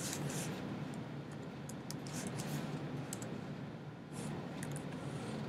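Computer keyboard keys clicking in short bursts of typing, over a faint steady low hum.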